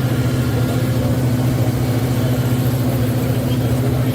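Steady background noise of a busy exhibition hall: a continuous low drone with an even wash of noise over it, loud enough to drown out a sound-equipped model locomotive.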